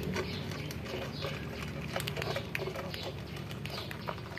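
A group of cats and kittens crunching dry kibble from a shared tray: a dense, irregular patter of small crunches and clicks. A steady low hum runs underneath.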